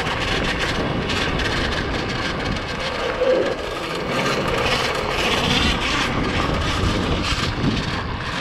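Custom electric pit bike with a QS Motor 2000 W mid-drive and chain final drive, ridden over a rough dirt and wood-chip trail: a steady rumble of knobby tyres and chain over the bumpy ground, with many small knocks and a faint whine from the drive now and then.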